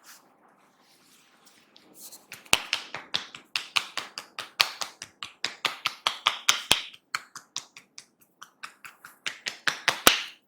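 Rapid sharp tapping and snapping of a masseur's hands on a person's head in an Indian head massage, several strokes a second. It starts about two seconds in, has a few louder strokes, and stops abruptly near the end.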